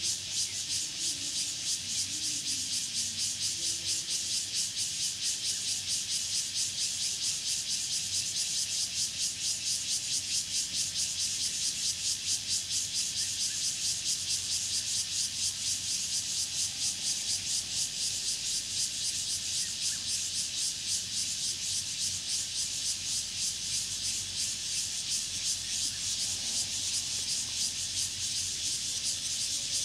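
Cicadas and other insects calling in a dense, steady, high-pitched chorus that pulses rapidly and evenly.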